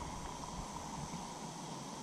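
Faint, steady outdoor ambience with a continuous high-pitched insect drone.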